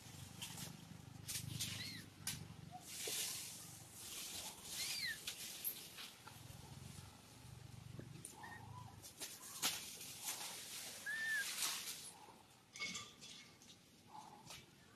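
Macaques giving a few short high-pitched calls, each rising then falling in pitch, scattered among bursts of rustling noise.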